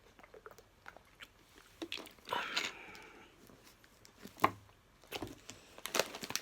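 A person taking a sip of drink, with small mouth clicks and swallowing, a short breathy sound about two seconds in and a sharp knock about four and a half seconds in. A snack packet starts to crinkle near the end.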